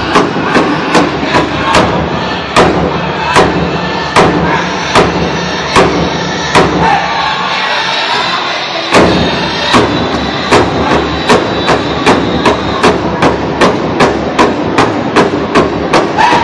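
Powwow drum group playing: several drummers strike a large bass drum together in a steady beat of about two to three strokes a second, with the singers' voices carried over it. A few seconds in, the strokes come heavier and further apart. Around the middle the drum stops for about two seconds while the singing carries on, then the steady beat resumes.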